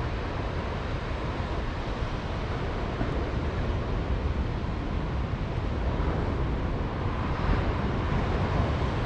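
Wind buffeting the microphone over the steady wash of ocean surf, a constant rushing noise with a low, fluttering rumble.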